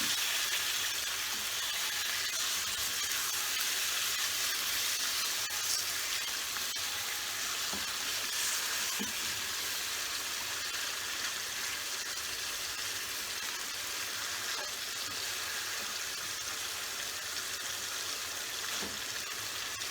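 Marinated bone-in chicken pieces sizzling steadily as they sauté in hot oil, with a few faint taps.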